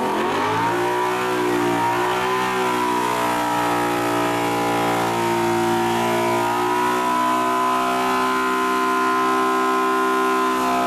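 Audi R8's 4.2-litre V8 revving up at the start, then held at a steady raised engine speed during an engine carbon clean treatment, with the hoses of the cleaning unit feeding the engine.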